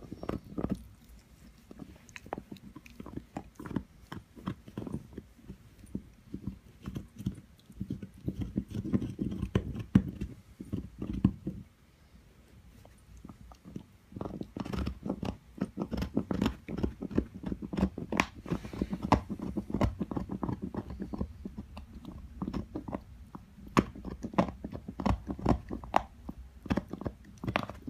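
A young dog gnawing on an antler chew: teeth grinding and clicking on hard antler in dense, irregular crunches, with a pause of about two seconds near the middle.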